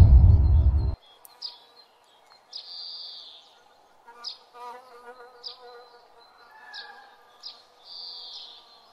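A deep boom cuts off about a second in. Then night insects chirp sparsely: short high chirps every second or so, with two longer trills of about half a second.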